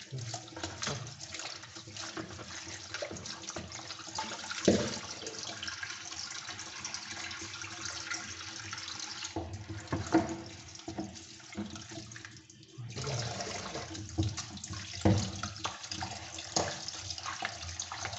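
Water running and splashing as dirty canister-filter sponges are washed by hand, with a few sharp knocks about 5, 10 and 15 seconds in. The water sound drops away briefly twice, around 9 and 12 seconds in.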